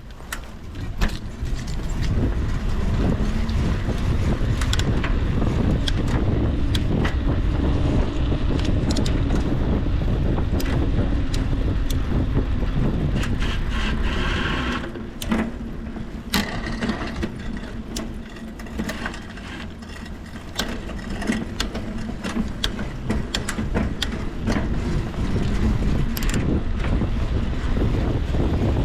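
Wind buffeting the microphone over a steady rumble during a bicycle test ride, with scattered sharp clicks; the rumble eases for a stretch in the middle and comes back.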